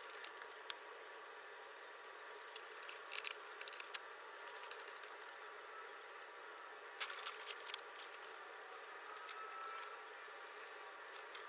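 Faint steady background hiss with a few light clicks scattered through it.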